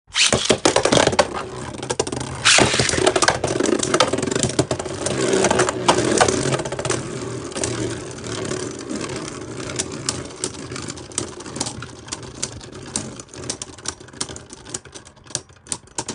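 Two Beyblade Burst tops, Wizard Fafnir and Alter Chronos, spinning on a plastic stadium floor, scraping and clicking against each other and the floor in rapid clatters. The sound starts suddenly, then fades. The clicks thin out and space apart near the end as the tops lose spin and wobble.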